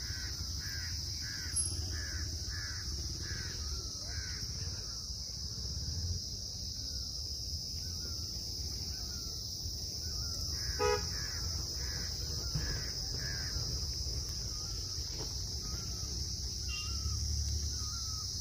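Outdoor hillside ambience: a steady high drone of insects. Over it, a bird gives harsh calls in a series, nearly two a second, in two runs, and other birds give short slurred calls. A brief horn-like toot comes about eleven seconds in.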